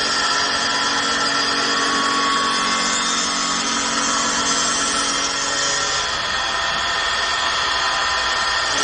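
Multi-head CNC wood lathe running and machining a wooden workpiece: a steady mechanical whine and cutting noise, with a shift in tone about six seconds in.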